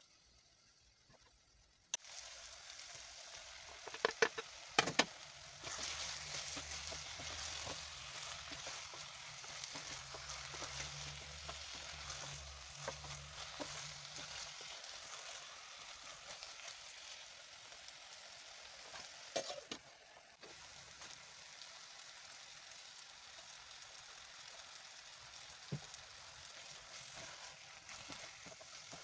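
Chopped onions frying in an aluminium pot, sizzling steadily from about two seconds in, as a spoon stirs them and knocks or scrapes against the pot a few times, sharpest around four to five seconds in.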